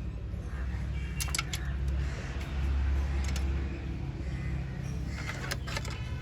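Toyota Corolla GLI engine running, revved up briefly about two and a half seconds in and settling back, while its ignition timing is being set. A few light metallic clinks sound over it.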